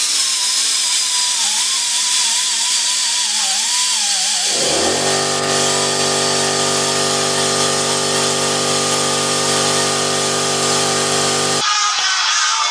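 A handheld power tool's motor running continuously with a loud hiss. Its pitch wavers under load for the first four seconds or so, then holds steady until it changes shortly before the end.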